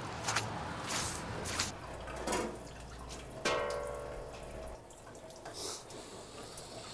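Water dripping in a sink, with several short clinks. About three and a half seconds in, a piece of dishware is struck and rings briefly before fading.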